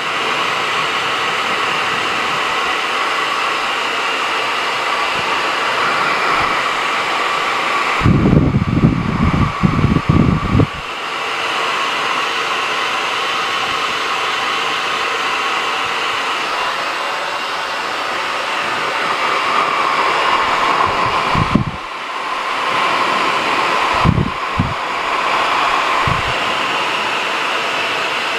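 Handheld hair dryer running continuously with a steady airy whine. Bouts of loud low buffeting break in, mostly about eight to eleven seconds in and a few times later.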